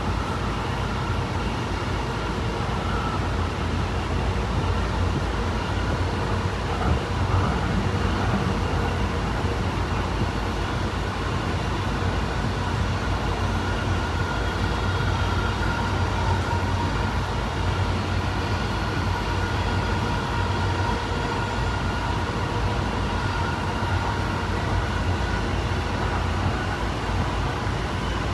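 Honolulu Skyline metro train running at steady speed, heard from inside the front of the car: a constant low rumble of the wheels on the track with a faint, even whine from the electric traction motors.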